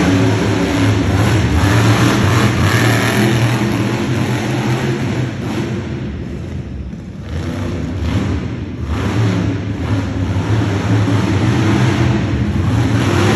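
Monster truck engine running loud as the truck drives around the dirt track. It eases off about halfway through, then revs back up.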